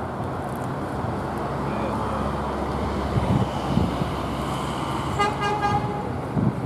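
Road traffic running past on a town street, with a vehicle horn tooting once, briefly, near the end.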